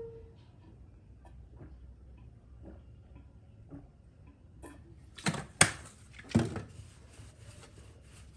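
Kitchen utensils being handled: scattered faint clicks, then three sharp knocks a little past halfway through.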